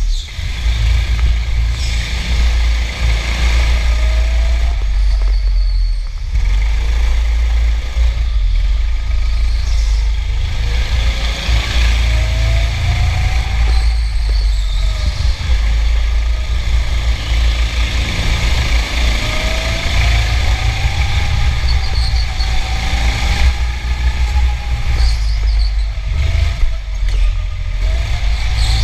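Go-kart at speed heard from on board: a heavy low rumble, with the kart motor's pitch rising and falling several times as it speeds up and slows through the laps.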